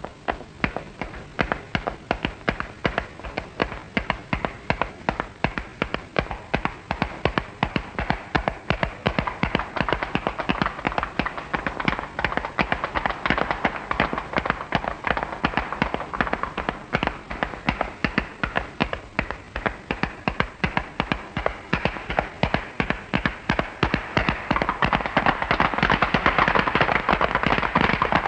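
A steady rhythm of sharp taps, about two to three a second, swelling louder over the last few seconds.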